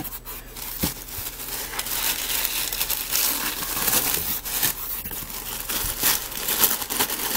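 Tissue paper crinkling and rustling as hands unfold the wrapping in a box, busier from about two seconds in.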